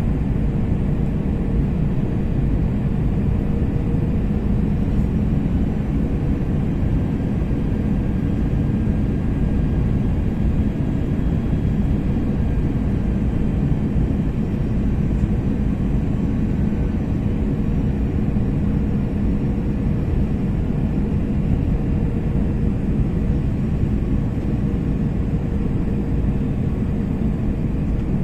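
Steady cabin noise of an Airbus A320-family airliner on approach, heard from a window seat: a low rumble of engines and airflow with a faint steady hum.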